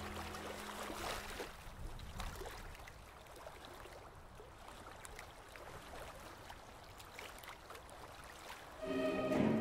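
Background music fades out, leaving a faint underwater ambience of soft hiss and scattered small crackles; a new piece of music starts near the end.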